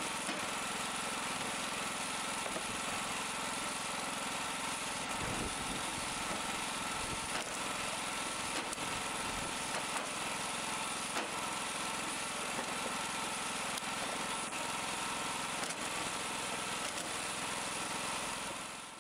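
Small petrol engine running steadily as it drives a homemade vertical wood splitter.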